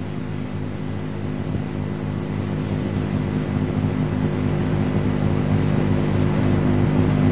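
Live audience noise, a steadily building murmur of listeners' voices, over a steady low electrical hum from an old recording.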